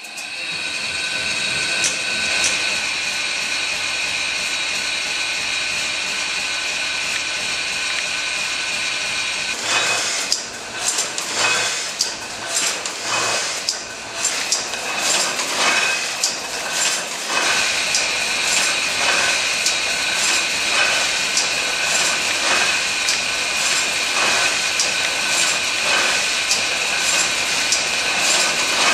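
Electric letterpress printing press switched on and running: a steady motor whine from the start, with irregular clacking from the mechanism about ten seconds in, settling into a regular clatter as the press cycles.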